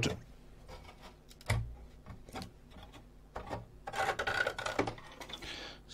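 A circuit board being worked loose and lifted out of a metal instrument chassis: small clicks and knocks, a dull bump about one and a half seconds in, then a scraping rub for about a second and a half from about four seconds in.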